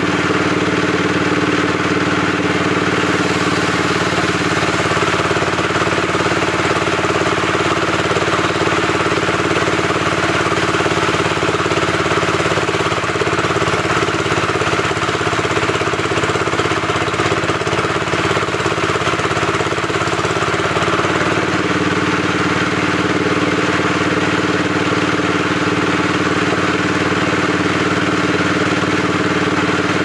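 Log sawmill machine running with a steady, many-pitched drone. For about ten seconds in the middle the sound deepens as a terap log is pushed through the saw, then it settles back.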